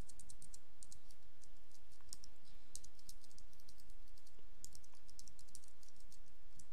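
Typing on a computer keyboard: a run of irregular, quick key clicks over a steady low hum.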